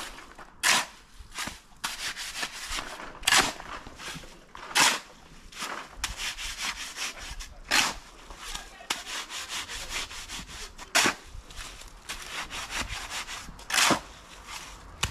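Steel shovel scraping over gravelly ground as a pile of wet sand-and-cement mix is turned by hand. Loud sharp scrapes come every two to three seconds, with softer scratching between them.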